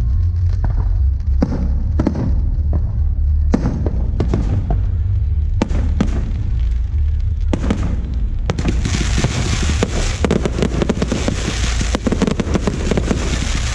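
Aerial fireworks display: separate shell bursts going off about every two seconds, then from about eight and a half seconds in a dense run of rapid crackling bursts, over a continuous deep rumble.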